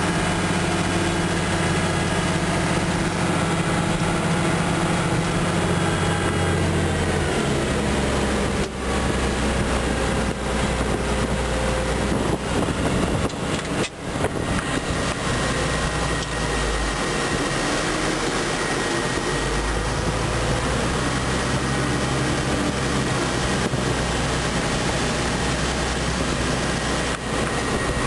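International Harvester 1066 tractor's six-cylinder diesel engine running. The engine speed drops about a quarter of the way in, then holds steady, with a thin steady whine in the second half.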